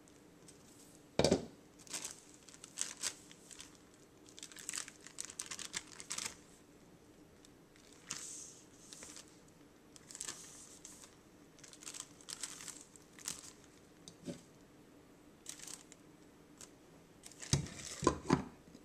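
Plastic bags crinkling and rustling as a hand works them inside a steel pot of cooked rice, with a sharp metal knock about a second in and a few loud clanks near the end as the steel pot lid is set back on.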